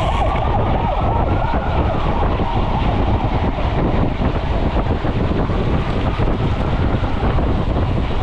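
Wind rushing over a GoPro's microphone on a mountain bike riding fast on the road, with steady tyre noise underneath. A faint whine rises and then falls over the first couple of seconds.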